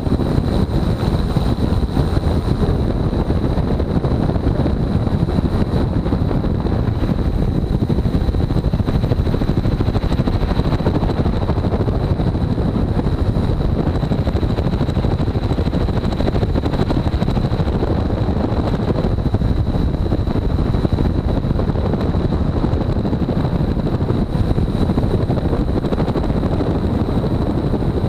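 Helicopter rotor and engine running hard through take-off and climb-out, a loud steady low rumble with a thin steady high-pitched whine over it.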